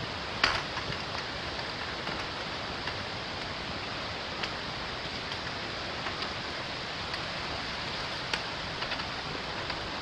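Steady rushing of a mountain stream swollen by monsoon rain, with a few faint ticks of footsteps on the rocky trail.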